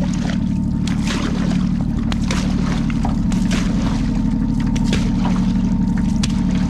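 Outrigger canoe paddle strokes splashing into the water, a dozen or so short sharp splashes at an uneven pace, over a steady low rumble.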